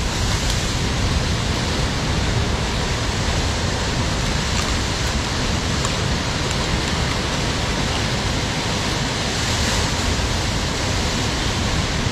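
Rough sea surf breaking against a rocky shore: a steady, loud rushing noise with no distinct breaks.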